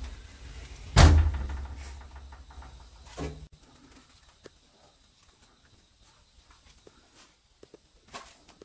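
A single loud bang about a second in, ringing out briefly over a low rumble, then a smaller knock about two seconds later, followed by faint scattered ticks and creaks.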